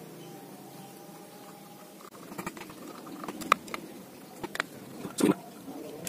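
Light clicks and taps of small fishing-reel parts and tools being handled during disassembly, beginning about two seconds in, with one louder knock about five seconds in.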